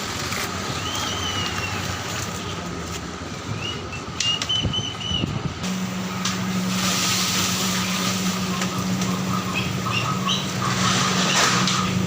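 Roadside background noise: a steady traffic rumble, joined about halfway through by a low steady engine hum, with short high bird chirps scattered throughout.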